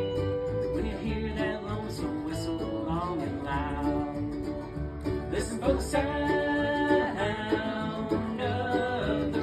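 Four-piece acoustic band playing a country-bluegrass song live.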